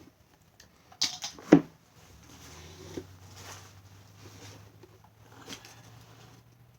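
Small objects being handled on a tabletop: two sharp knocks about a second in, then light rustling and shuffling over a low steady hum.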